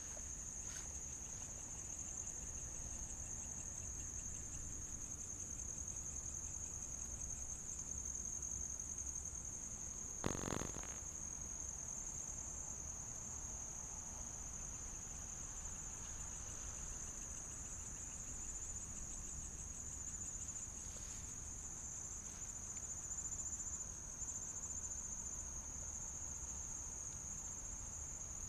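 Night insects, crickets, chirping in a steady high-pitched chorus, with a single sharp knock about ten seconds in.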